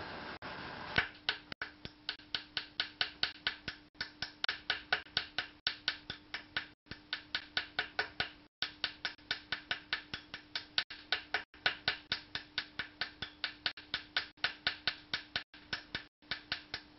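Rapid light hammer taps, about five a second in runs with brief pauses, with the ball end of a ball-pein hammer peening over a rivet set into a countersunk hole.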